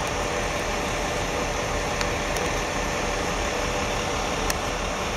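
Steady vehicle engine and road noise, a low even rumble, heard from inside a car.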